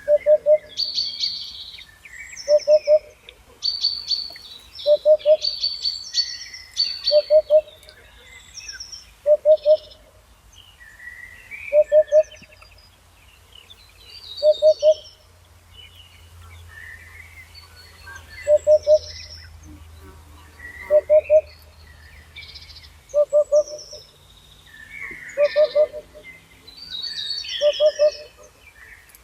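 Birdsong: several birds chirping and warbling at once, over a lower-pitched short call of a few quick pulses that repeats about every two seconds and is the loudest sound.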